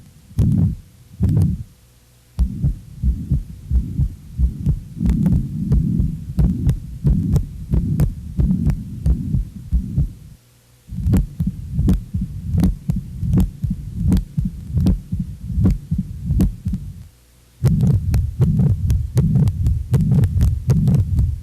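Recorded heart sounds heard through a stethoscope: heartbeats with murmurs, demonstrating the sounds of heart-valve lesions. They play as several separate examples, with short pauses about 2, 10.5 and 17 seconds in.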